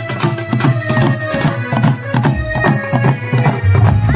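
Odia folk drum band: several waist-slung barrel drums beaten in a quick, steady rhythm, with a reed pipe playing a held, droning melody over them.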